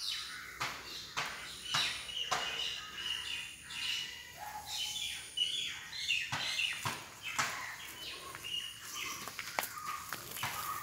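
Birds chirping and calling, with frequent sharp clicks and rustles that are the loudest sounds.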